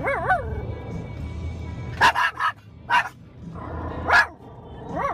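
Small long-haired dog barking: a wavering, howl-like yowl at the start, four sharp barks between about two and four seconds in, and another wavering yowl near the end. Underneath is the low road rumble of a moving pickup truck's cabin.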